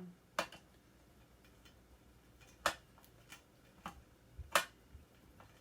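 Scattered sharp clicks and clinks of tools and small parts being handled while a microwave magnetron is taken apart, about half a dozen at uneven intervals.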